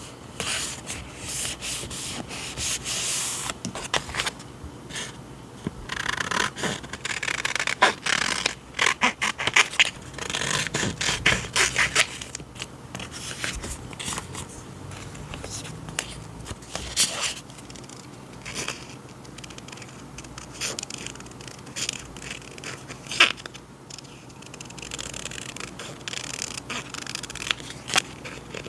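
Paper and packaging handled close to the microphone: rustling, scraping and rubbing with many small clicks and taps.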